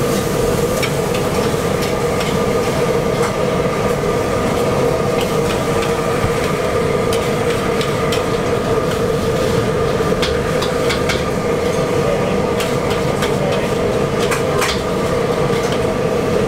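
Metal spatula scraping and tapping a large wok as pad thai noodles and egg are stir-fried, with scattered clicks that cluster about ten and fourteen seconds in. Underneath runs a steady, loud roar with a constant hum from the stove under the wok.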